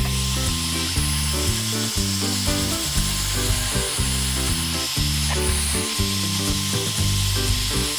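Background music with a bass line stepping from note to note, over a steady hiss.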